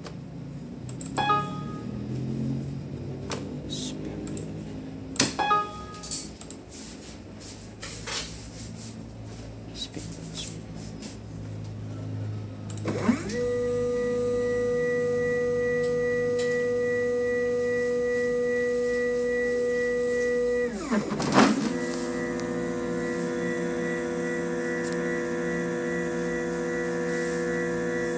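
A few scattered clicks, then the stepper motors of a home-built CNC machine whine up to a steady pitched tone as an axis moves. About eight seconds later the pitch dips and glides again as the motion changes, then holds at a new steady tone.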